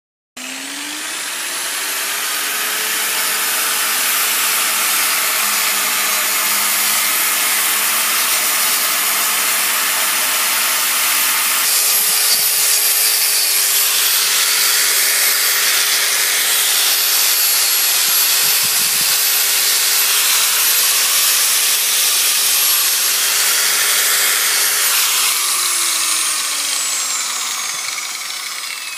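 Electric angle grinder with a red abrasive wheel stripping rust off a cast iron wood stove part. The motor spins up just after the start, runs loudly and steadily with a harsh grinding rasp against the metal, then winds down with a falling whine near the end.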